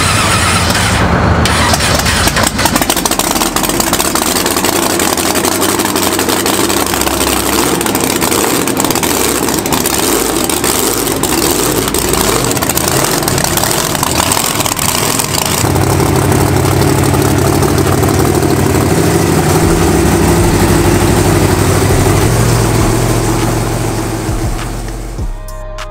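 Heavy engines running loudly and unevenly, from a monster truck stuck on a pile of crushed cars and the front-end loader pushing against it. The sound changes character about two-thirds of the way through, then drops away near the end.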